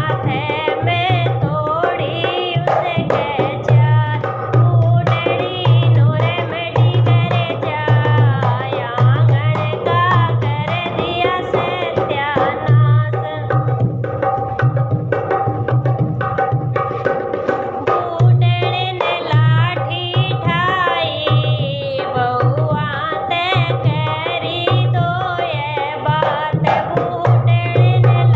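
Haryanvi folk song: singing over a steady hand-drum beat.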